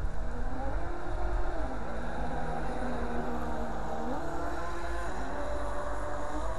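Twin 380-size electric motors of a radio-controlled model yacht whining as it runs across the water, the pitch sliding down about two seconds in and climbing again about four seconds in. A low rumble lies underneath.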